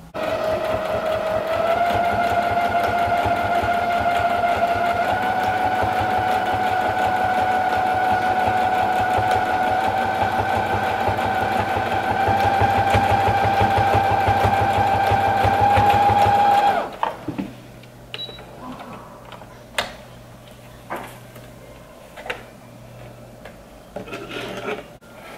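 Computerised household sewing machine stitching fabric: a steady motor whine with rapid needle strokes, creeping slightly higher in pitch as it runs. It stops suddenly about two-thirds of the way through, and only a few faint clicks follow.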